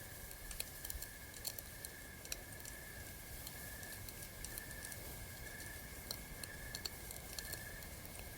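Crackling campfire: irregular sharp pops and crackles, over a steady high-pitched drone.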